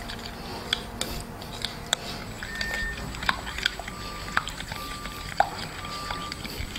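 A plastic spoon stirring thick yogurt marinade in a glass bowl: wet scraping with irregular clicks and taps of the spoon against the glass.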